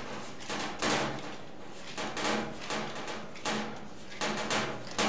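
Bread dough being kneaded by hand in a glass bowl: about eight irregular soft thuds and knocks as the dough is pushed and turned against the bowl, some coming in quick pairs.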